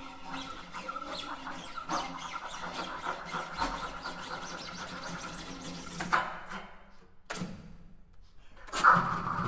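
Contemporary chamber music played with extended techniques on a guitar laid flat and prepared with a cloth, together with flute and objects: a dense texture of scratching, squeaking noise full of small clicks. It thins out to almost nothing about seven seconds in, with one sharp click, then comes back suddenly and louder near the end.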